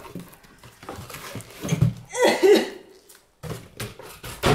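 A shrink-wrapped book box set being pulled out of a cardboard shipping box: rustling and a few knocks. A short wordless vocal sound about two seconds in is the loudest part.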